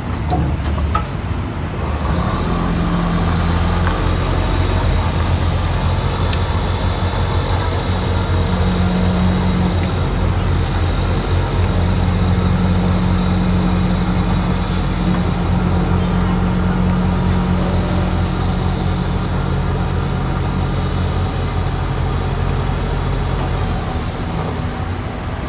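Heavy diesel engine of an excavator running steadily, revving up a little about two seconds in and then holding.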